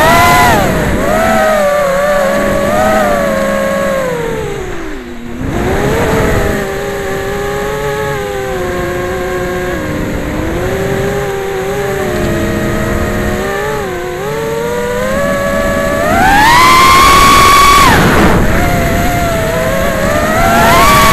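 The brushless motors and propellers of a Wizard X220S racing quadcopter, heard from its onboard camera, whining in several pitches that rise and fall with the throttle. About five seconds in the throttle drops and the pitch sinks low before climbing again, and about sixteen seconds in the motors go to a loud, high full-throttle whine for about a second and a half before easing off.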